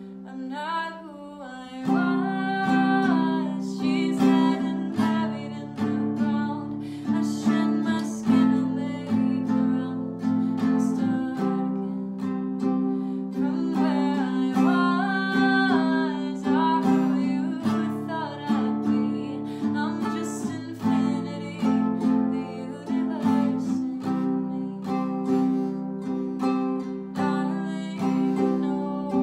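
Acoustic guitar strummed in an original song, with a voice singing phrases over it, recorded on a phone.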